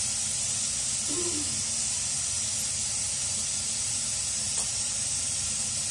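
Puris deep-frying in hot oil in a kadhai: a steady sizzle, with one light click about four and a half seconds in.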